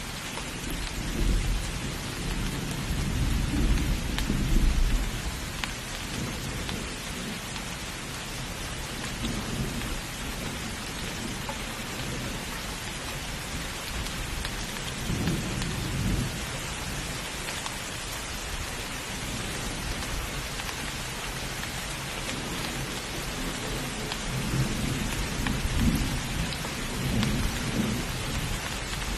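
Steady heavy rain with thunder rumbling, loudest in the first few seconds, again about halfway, and near the end.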